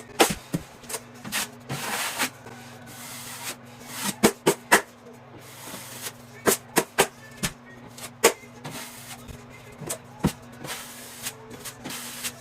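Drywall knife working premixed joint compound on a wall: soft scraping strokes broken by sharp clicks and taps of the metal knife. A steady low hum runs underneath.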